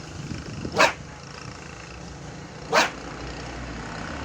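A repaired two-piece fishing rod swished hard through the air twice, about two seconds apart, each a short sharp whoosh. The rod is being flexed to test whether the mended joint holds.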